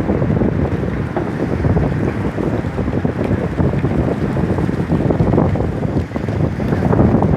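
Wind buffeting the microphone: a loud, uneven rush of noise that swells and dips throughout.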